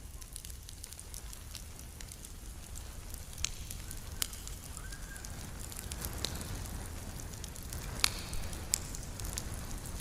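Campfire crackling, with sharp pops every second or two over a low rumble, the loudest pop about eight seconds in.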